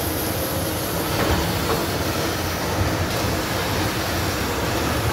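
Ride-on floor scrubber running steadily as it drives across a marble floor, a continuous low mechanical drone without breaks.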